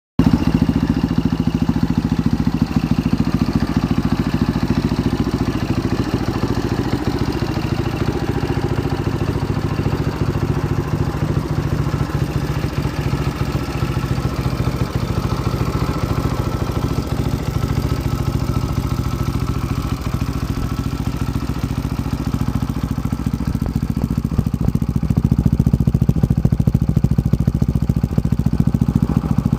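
An engine idling steadily, getting a little louder near the end.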